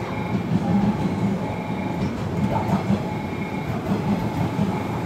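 JR West 117-series electric train rolling into a station over the pointwork, with a steady rumble of wheels on rails.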